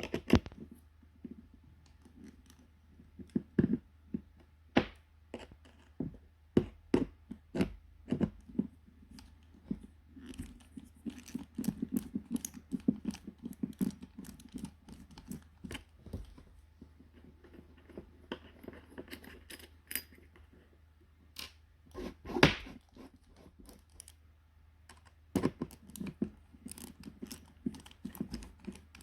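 Hands and tools working on a Nutribullet blender base: irregular clicks, knocks and scraping of small hard plastic and metal parts, with one louder knock about three quarters of the way through.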